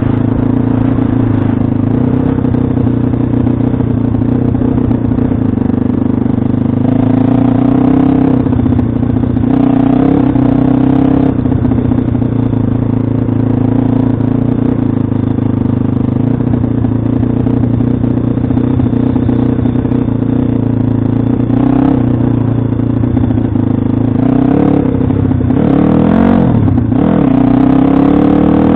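Pit bike's single-cylinder engine running hard under riding load, its pitch rising and falling with the throttle and a deep dip and climb near the end.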